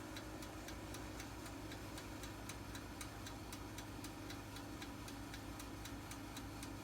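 Black & Decker Crisp Bake air fryer toaster oven warming up empty: its convection fan hums steadily, not too noisy, under an even ticking of several ticks a second, typical of the oven's mechanical timer dial running down.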